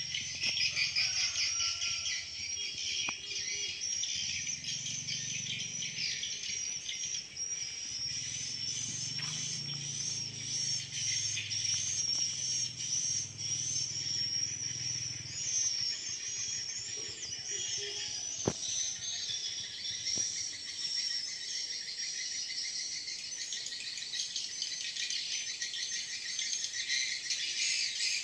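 A steady, high-pitched chorus of insects, with birds chirping through it.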